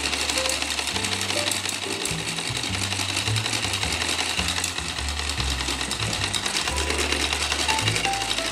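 Two-cylinder Lego solenoid engine running steadily: a rapid, even clatter of its solenoid plungers and switch contacts. Background music with a bassline plays alongside.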